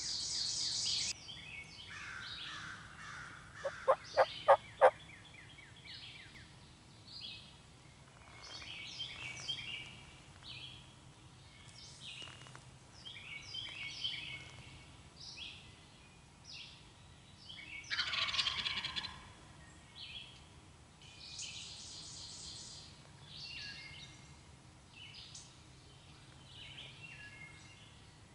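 Four short, loud turkey calls in quick succession about four seconds in. Songbirds chirp throughout, with another louder raspy call around eighteen seconds.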